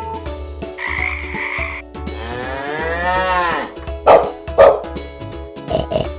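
Recorded animal sounds played one after another over children's background music: a frog croaking, a cow mooing in one long, arching call, then two loud dog barks and a short animal call near the end.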